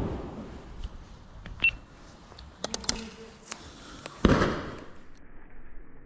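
Two 12-bore shotgun shots: one right at the start and a louder one about four seconds in, each a sharp bang that dies away within about half a second. A few light clicks come between them.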